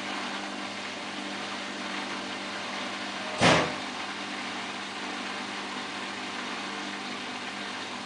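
Samsung WF8804RPA washing machine in its final spin, the drum running with a steady whir and hum. About three and a half seconds in, a brief loud burst of noise stands out above it.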